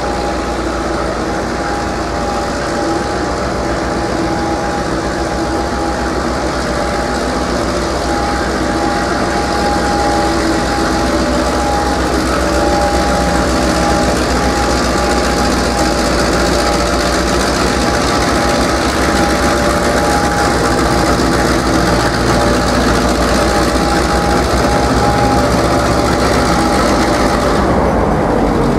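Victorian Railways T class diesel-electric locomotive T364 hauling a container train slowly into the platform. Its engine grows steadily louder as it approaches and passes close by, with a steady ringing tone held over the engine noise.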